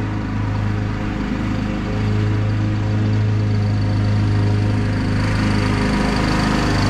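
Husqvarna YTH21K42 riding mower's engine running steadily while mowing with the deck engaged, growing a little louder about two seconds in as the mower comes closer.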